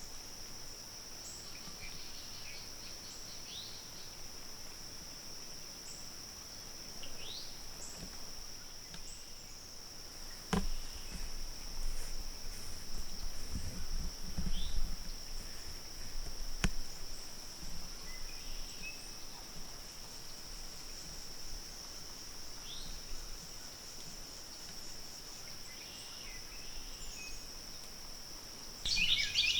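Woodland morning ambience: a steady high-pitched insect drone throughout, with scattered short bird chirps and a busier flurry of bird calls near the end. A couple of sharp clicks about ten and seventeen seconds in.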